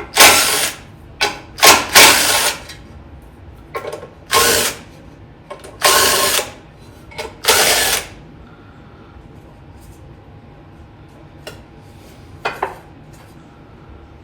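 Power drill with a socket running bolts out in short bursts, about seven spurts in the first half and one more near the end. The bolts are the 5/16 head bolts being removed to get down to a Kohler twin's carburetor.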